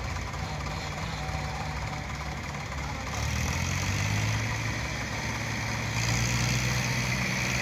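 Sonalika tractor's diesel engine running steadily while driving the hydraulics that tip the loaded trailer to dump soil; the engine note steps up louder about three seconds in and again near the end.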